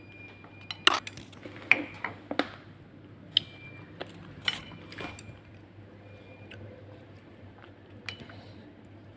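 Cutlery clinking against a dish: a series of sharp clinks, some ringing briefly. They come thick in the first few seconds and more sparsely after.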